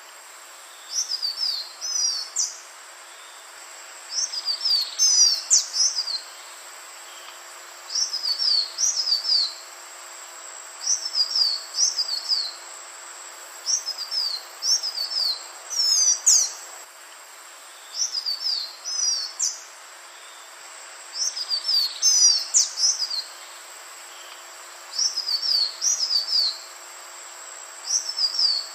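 Green iora (Aegithina viridissima) singing: short phrases of quick, high whistled notes sliding up and down, repeated about every three seconds, around ten phrases in all.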